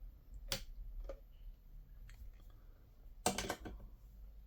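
A few light clicks, then a short rattling clatter of clicks a little over three seconds in, over a low steady hum.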